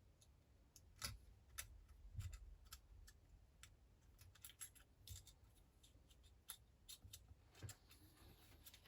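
Faint, irregular clicks and light taps of small parts and tools being handled while a smartphone is reassembled.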